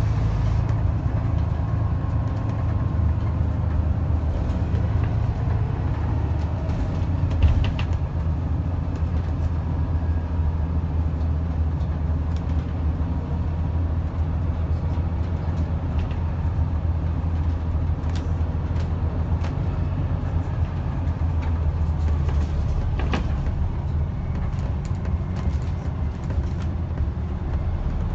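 Scania N94UD double-decker bus's five-cylinder diesel engine and drivetrain running steadily while the bus drives, heard from the upper deck as a low rumble, with body rattles. One sharp knock comes about seven seconds in.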